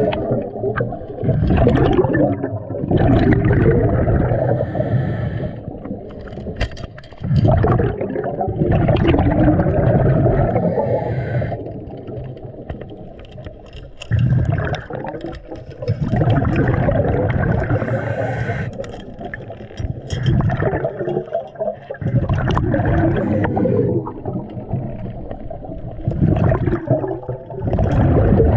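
Underwater bubbling and gurgling in bursts every few seconds, the sound of a scuba diver's exhaled air bubbles heard close to the microphone.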